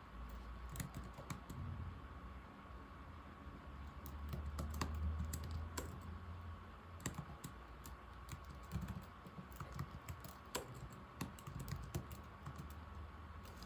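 Typing on an old laptop keyboard: irregular key clicks, now sparse, now in quick runs. A low rumble rises under the typing about four seconds in and lasts some two seconds, and a faint steady high tone runs underneath.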